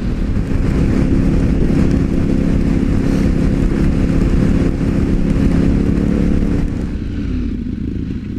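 Motorcycle engine running steadily at highway speed, heard from on board, under wind and wet-road hiss. Near the end the engine note falls as the bike slows.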